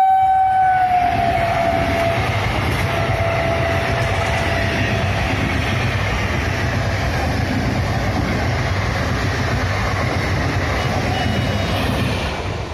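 12-coach ICF electric multiple unit local train passing at about 95 km/h. Its horn sounds for the first few seconds and drops slightly in pitch about a second in, over the steady rush and rumble of the coaches going by. The rumble fades near the end as the last coach passes.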